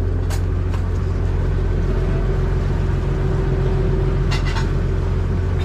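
Motorboat engine running steadily under way, a deep even drone with a steady hum above it, and a few brief clicks about half a second in and past the four-second mark.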